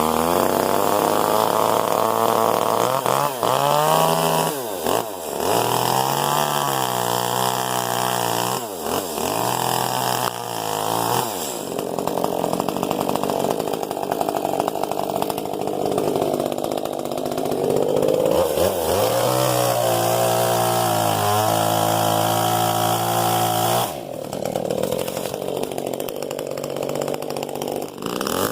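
Gas chainsaw running at high revs and cutting through the trunk of a fallen white bird of paradise, its engine pitch sagging and recovering several times as the chain bites into the wood.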